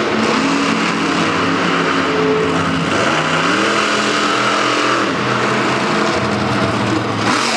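Monster truck engine running and revving, its pitch climbing about three seconds in, holding, then dropping back about two seconds later, over a steady wash of engine noise.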